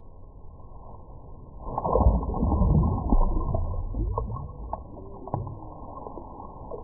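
Muffled, underwater-sounding sloshing and splashing of lake water as a fish is released by hand, heard through a submerged action camera. The loudest churning comes about two to three and a half seconds in, followed by a few sharp clicks.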